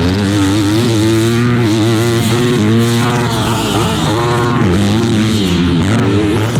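Dirt bike engine revving hard, its pitch rising and falling again and again as the rider works the throttle and gears.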